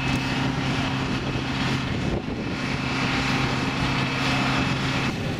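Steady engine drone with a constant high whine above it, which stops abruptly near the end.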